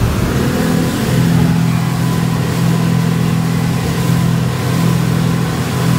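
Twin outboard motors driving a boat at speed: a steady engine drone that climbs slightly in pitch in the first second and then holds, over a constant rushing hiss.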